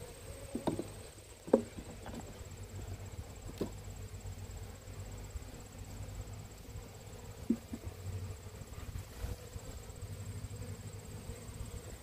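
Honey bees humming around an open hive, with a few short, sharp wooden knocks and clicks as frames and the metal hive tool are handled. The loudest knock comes about a second and a half in.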